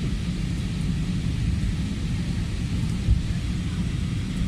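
Airbus A320 cabin noise on final approach: a steady low rumble of the engines and airflow heard from inside the cabin, with one brief thump about three seconds in.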